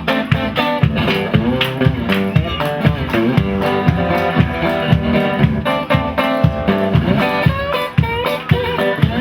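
A live band playing an instrumental stretch, with guitar bending notes over a steady drum beat.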